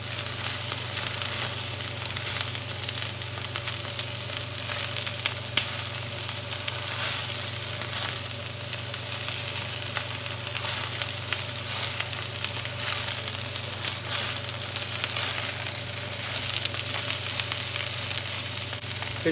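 Shredded cabbage sizzling steadily in hot oil in a metal wok over high heat as it is stir-fried, with occasional light clicks of the chopsticks and spatula against the pan.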